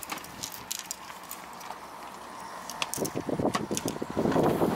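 A freshly landed horse mackerel flapping on concrete: a rapid, irregular patter of slaps and taps that starts about three seconds in and grows louder, after a few light clicks.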